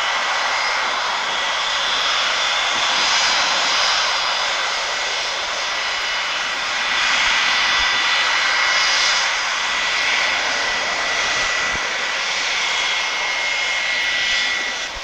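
Boeing 707's four Pratt & Whitney JT3D turbofans running at taxi power: a steady rush of jet noise with a high whine held near one pitch. The noise swells a little at times as the aircraft taxis past.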